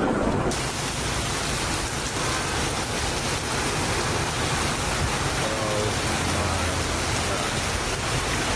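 Heavy rain pouring down, a dense steady hiss that sets in suddenly about half a second in.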